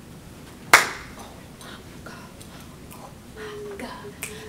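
A single sharp hand clap about a second in, then a low voice talking quietly near the end, in a small room.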